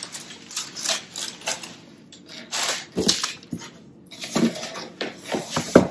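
Crumpled kraft packing paper rustling and a cardboard shipping box being handled, in irregular crinkles and soft knocks, with a sharper knock near the end.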